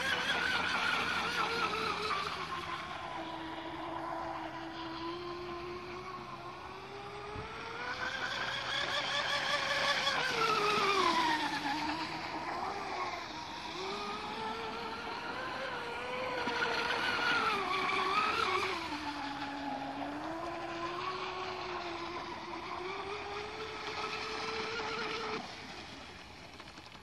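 Electric RC speedboat on a 6S battery running flat out, a high motor whine that rises and falls in pitch as the boat speeds up, turns and passes. The whine cuts out about two seconds before the end.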